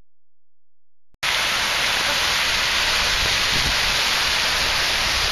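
Silence for about the first second, then the steady hiss and splash of a large ornamental fountain's water jets starts abruptly.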